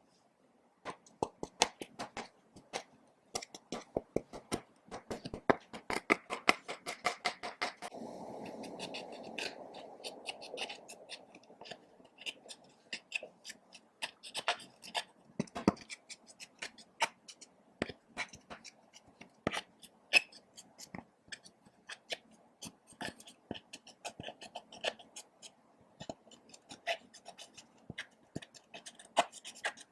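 Sticky slime being mixed and squished by hand, making many small irregular wet clicks and pops. A longer smeary squelch runs from about five to eleven seconds in.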